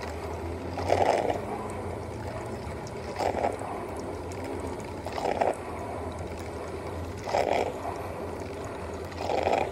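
De'Longhi drip coffee maker brewing: short gurgling spurts about every two seconds as the heated water is pushed up to the filter, over a steady low hum.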